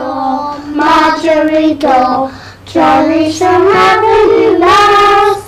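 Young children singing a nursery rhyme, a simple tune of held notes in short phrases with brief breaks between them.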